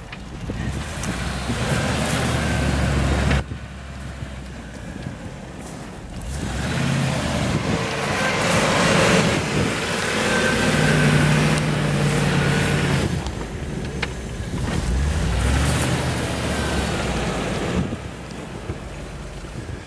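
Land Rover Discovery I off-roader's engine revving as it pushes through deep snow on 285/75 R16 all-season tyres. The revs rise and fall several times, with the hiss of churned snow underneath.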